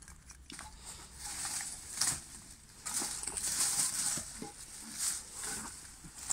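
Leafy undergrowth rustling and crackling, with chicken wire scrunching, as it is pulled aside by hand in a run of irregular bursts.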